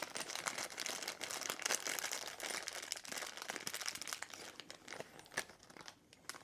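Crinkling and rustling of a bag being rummaged through by hand to get out small parts, dense for about five seconds, then thinning out and fading near the end.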